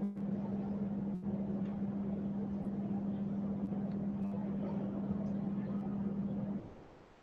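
Steady room hum with a constant low tone and a rumbling background haze, with a sharp click about a second in; the hum fades away near the end.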